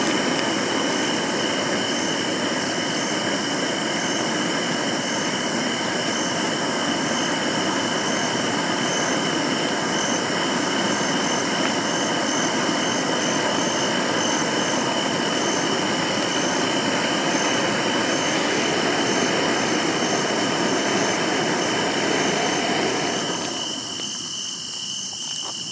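Handheld firework fountain burning: a steady loud hiss of spraying sparks with a constant high tone over it, dying down near the end.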